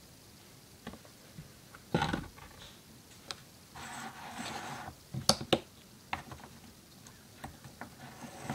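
Wooden craft stick stirring glue and paint in a small plastic cup: a run of sharp taps and knocks of the stick against the cup, loudest about two seconds in and again just after five seconds, with a short stretch of scraping around four seconds in.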